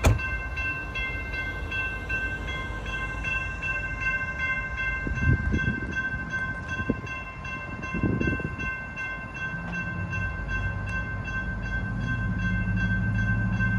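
Railroad grade-crossing warning bell ringing steadily with a quick, even clang. A low engine drone builds up under it in the last few seconds.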